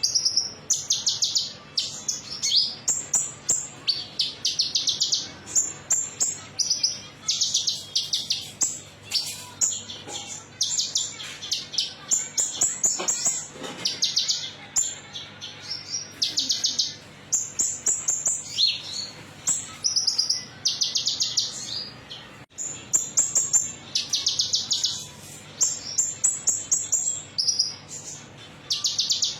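Konin (kolibri ninja sunbird, 'metalik' variety) singing: short phrases of rapid, high, twittering chirps, each about a second long, repeated with brief pauses. It is a lure recording, played to prompt caged birds to sing.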